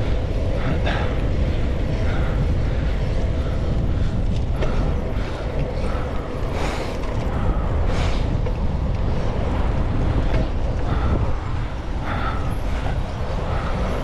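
Riding a bicycle through city traffic: a steady low rumble with creaks and clicks from the bike's moving parts, and two brief hissy swells just past halfway.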